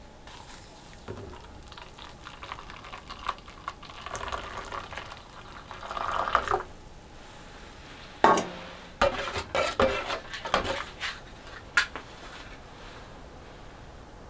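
Hot water poured from a kettle into a stainless steel mug, swelling for a couple of seconds. Then a loud metal clank as the kettle is set down on the stove top, followed by a run of light metallic clinks and knocks.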